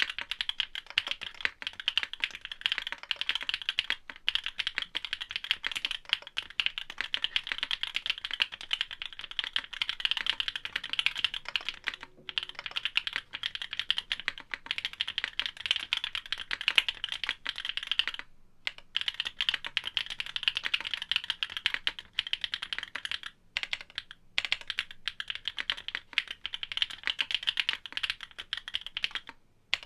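Fast continuous typing on a Geon F1-8X custom mechanical keyboard with factory-lubed OWLAB SWK Neon switches, an aluminium leaf-spring plate and DMK Vintage keycaps: a dense run of keystrokes with a few brief pauses.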